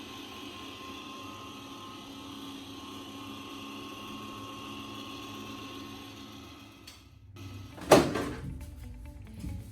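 A PC cooling fan whirring steadily with a high whine, which cuts out about seven seconds in. About a second later comes a single loud knock.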